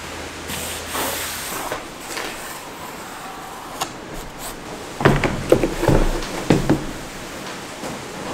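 A plastic car side skirt being handled on a metal-topped table: a scraping slide, then a cluster of knocks and clatters about five to seven seconds in.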